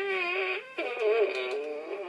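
Electronic toy pug dog playing a recorded noise through its small speaker: two long, wavering, whiny tones, the second starting just under a second in.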